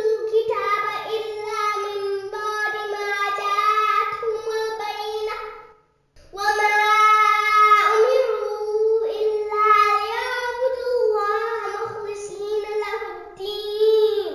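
A child's voice reciting the Quran in a melodic chant, holding long drawn-out notes, with a short pause for breath about six seconds in.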